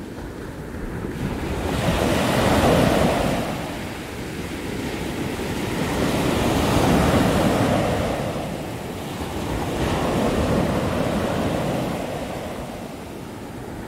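Ocean surf breaking on a sandy beach: a continuous rushing wash that swells three times as successive waves break and spread up the sand.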